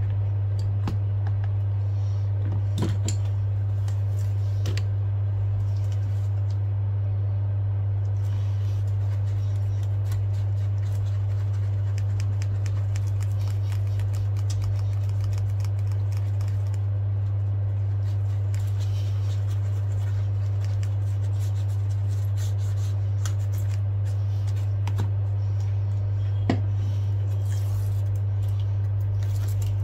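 A steady low hum, with faint scattered clicks and rubbing from hands handling an iPad screen and wiping the LCD with a cloth.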